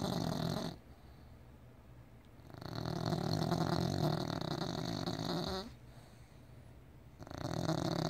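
Bulldog snoring in deep sleep: long, loud snores that come in a slow rhythm. One snore ends just after the start, a full snore runs through the middle, and the next begins near the end.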